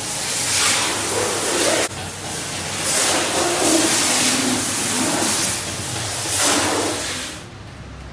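Water jetting from a car-wash hose onto a car's body, a loud hissing spray that swells and fades as the jet moves over the panels. It drops to a much quieter hiss near the end.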